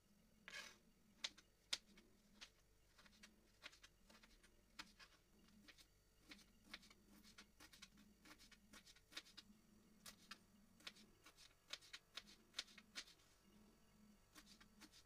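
Kitchen knife slicing vegetables on a cutting board: faint, irregular taps of the blade on the board, about two a second, as tomato and then bell pepper are cut into strips.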